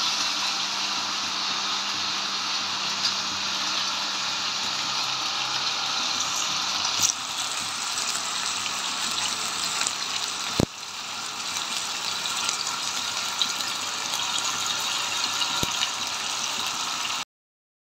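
Masala-coated Indian mackerel shallow-frying in hot oil in a pan: a steady, dense sizzle. The sound jumps abruptly about seven and ten and a half seconds in, and drops out briefly just before the end.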